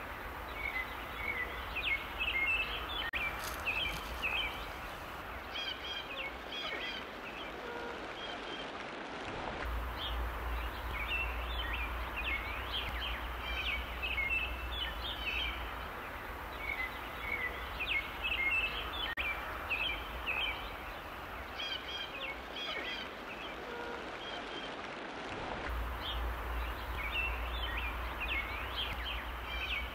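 Small birds chirping and twittering over a steady outdoor hiss and a low rumble of wind. The same stretch of birdsong repeats about every 16 seconds, as in a looped ambience track.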